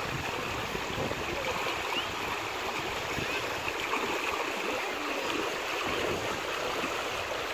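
River water rushing steadily over a stony bed.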